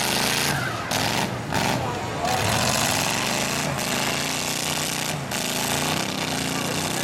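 Several demolition derby cars' engines revving hard, pitch climbing and falling repeatedly, under a loud rushing noise that briefly drops away a few times.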